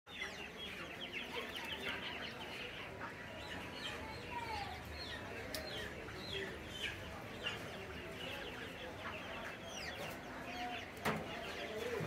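Live quail and caged poultry chirping and clucking, with many short high calls that slide down in pitch, over a low rumble. A single sharp knock comes near the end.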